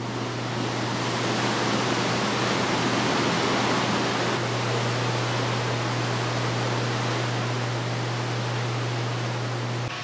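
Steady rushing, churning water from an outdoor hot tub, with a steady low hum underneath; it cuts off abruptly just before the end.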